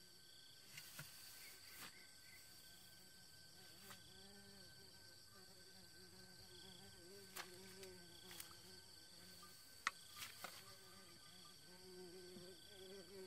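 Faint, steady insect chirping, with a few light clicks and knocks, the sharpest about ten seconds in.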